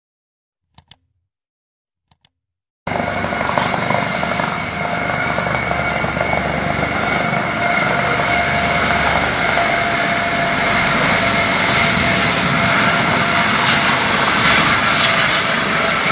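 Two brief clicks over silence, then about three seconds in a low-flying helicopter's engine and rotors start up loud and steady, with a constant whine over the noise.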